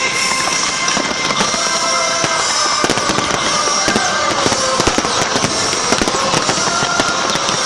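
Fireworks going off continuously: a dense, steady crackle of many sharp pops and bangs over a constant hiss.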